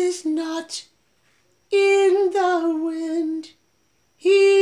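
A woman singing slow, held notes at a steady mid-high pitch in short phrases of a second or two, with brief pauses between them and no clear words.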